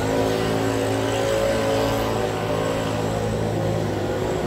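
Cologne Stadtbahn light-rail train moving slowly alongside the platform, its electric drive giving a steady hum of several level tones.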